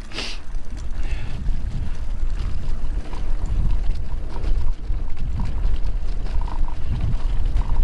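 Wind rumbling on the camera microphone over the tyre noise and small clicks and rattles of a Calibre Bossnut full-suspension mountain bike as it gathers speed down a rough chalk track, with a brief hiss just at the start.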